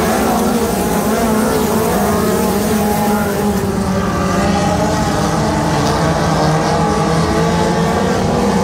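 A field of USAC midget race cars with four-cylinder engines running flat out around a quarter-mile clay oval, in a steady din of several engines whose pitches rise and fall as the cars lift and get back on the throttle.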